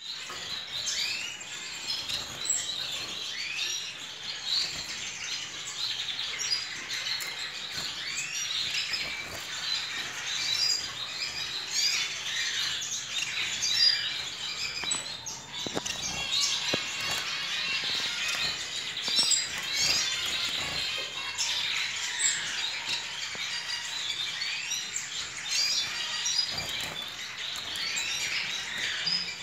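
Small caged finches, Gouldian finches among them, chirping and calling in a continuous high chatter, with a longer arching call now and then. Occasional soft knocks and wing flutters sound as birds hop and fly about the cage.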